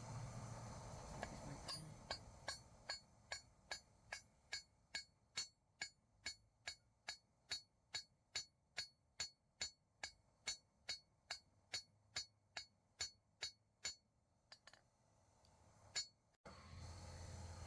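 Blacksmith's hammer striking metal on an anvil in a steady rhythm, about two and a half ringing blows a second. It stops about fourteen seconds in, with one last ringing strike near the end.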